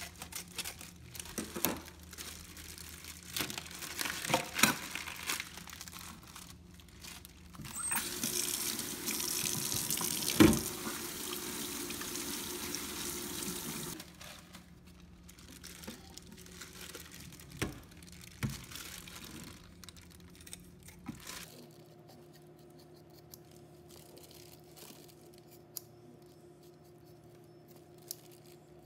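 Kitchen tap running into a stainless steel sink for about six seconds, with one sharp knock partway through. Before it, plastic wrapping crinkles and scissors click as a raw whole chicken is cut from its bag. Afterwards there are only a few faint clicks.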